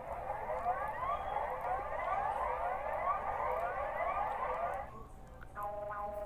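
Electronic emergency alarm of many overlapping, quickly repeating rising sweeps, cutting off about five seconds in. After a short gap a different alarm begins: pulsing beeps of several tones sounding together, a little over two a second.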